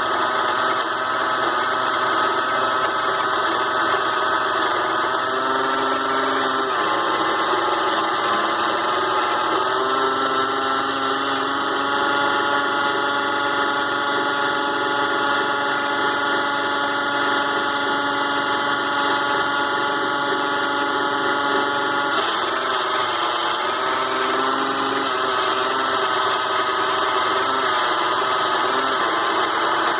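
Small DC motor of a 6-in-1 mini lathe running steadily with a whine of several tones while the lathe turns aluminum stock down to diameter. The tone shifts a few times as the cut or load changes.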